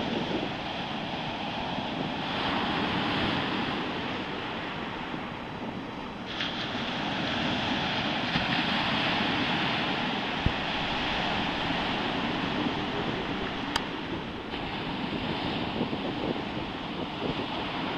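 Stormy Baltic Sea waves surging and breaking in a continuous rush that swells and eases, with wind buffeting the microphone.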